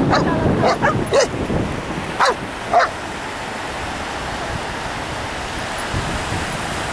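Cardigan Welsh Corgi barking: about six short, sharp barks and yips in the first three seconds. After that only the steady rush of surf remains.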